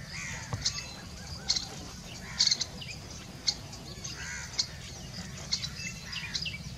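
Wild birds calling: short, sharp high chirps about once a second, with a few softer, lower calls between them, over a steady low background rumble.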